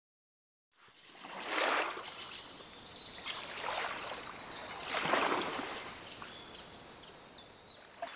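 Lakeside ambience: water washing and lapping, swelling twice, about one and a half and five seconds in, with small birds chirping repeatedly over it. It fades in after a brief silence.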